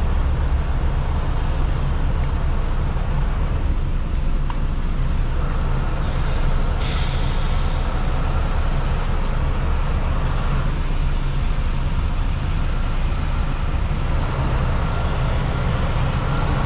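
Semi truck's diesel engine running steadily at low speed, heard from inside the cab, with a short hiss of air from the air brakes about six seconds in.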